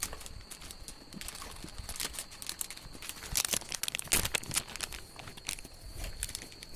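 Plastic packaging crinkling and rustling as a TV is unpacked from its box, in irregular crackles that grow dense and louder for a couple of seconds in the middle.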